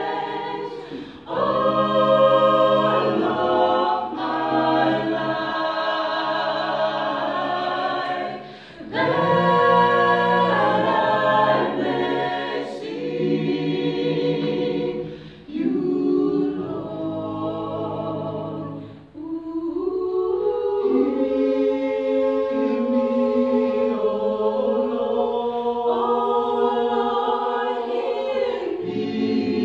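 A small mixed group of men's and women's voices singing a cappella in harmony, in phrases separated by short breaks. From about twenty seconds in they hold long, steady chords.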